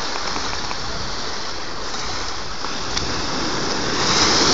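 Small sea waves breaking and washing around the shallows, a steady rush of surf that swells as a wave breaks near the end.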